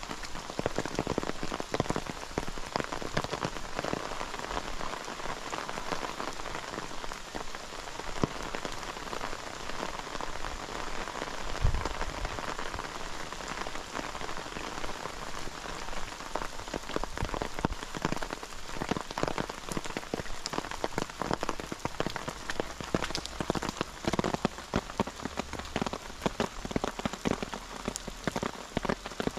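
Steady rain falling, with many sharp individual drop hits close to the microphone, and one heavier thud about twelve seconds in.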